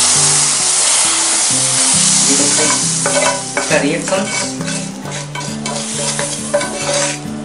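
Hot ghee-fried vermicelli and dry fruits hitting boiling milk: a loud hiss and sizzle that starts at once and eases after two or three seconds, with a wooden spatula scraping the rest out of the pan.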